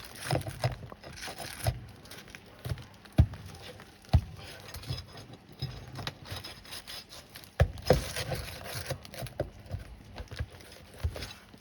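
A steel nail bar knocking and scraping against asphalt roof shingles while roofing nails are pried out, with a few loud sharp strikes, two of them a second apart about three seconds in, among quieter tapping and scraping.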